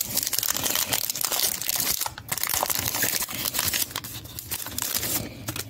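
Foil wrapper of a trading-card pack crinkling as it is handled and torn open, a dense crackle with a brief pause about two seconds in.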